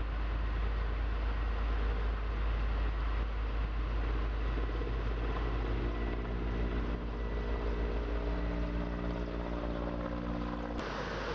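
A heavy engine running with a deep rumble, a steady droning pitch joining in about halfway. It cuts off abruptly near the end, and a rushing noise takes over.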